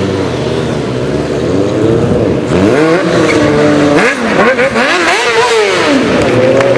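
Sport motorcycle engine running loud during stunt riding, its revs rising and falling several times from about halfway in as the throttle is worked.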